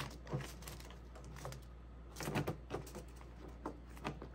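Paper seed packets being shuffled into a small plastic storage case, with scattered light taps and clicks of the plastic as the case is handled and shut; a quick cluster of taps comes a little past two seconds in.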